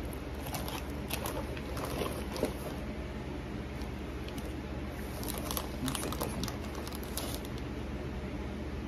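Foil popcorn bag crinkling and toffee-coated popcorn rustling as a hand digs through it, in two spells of scattered crackles. A steady low hum runs underneath.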